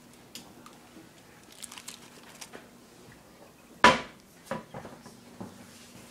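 Handling sounds of kitchenware: a few scattered clinks and knocks, the loudest a single sharp knock about four seconds in.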